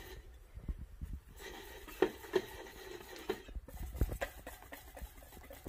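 Wire balloon whisk beating thick dalgona coffee mixture in a metal bowl: irregular light clicks and scrapes of the wires against the bowl's side.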